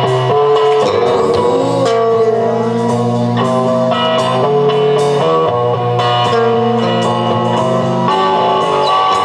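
Live rock band playing a song: electric guitars ringing sustained notes, some sliding in pitch, over bass and drums.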